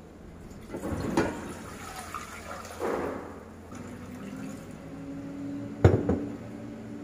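Water poured from a glass jug into a pot, splashing and gurgling as it fills. A sharp clink comes near the end.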